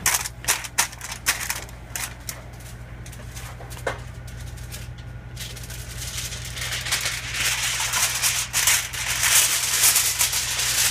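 Aluminum foil crinkling as it is folded and creased around a baking pan: sharp crackles for the first couple of seconds, then a louder, continuous rustle from about six seconds in. A steady low hum runs underneath.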